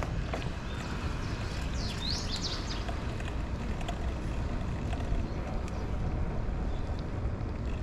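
Steady wind rush on the microphone and tyre noise from a bicycle rolling along a paved street, with a brief cluster of high chirps about two seconds in.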